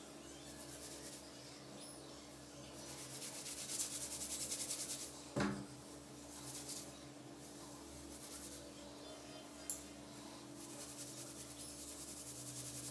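Fingers rubbing and combing through long, oiled hair, a crisp scratchy rustle that comes in stretches. A single short thump comes a little before halfway, and a sharp click about three-quarters through.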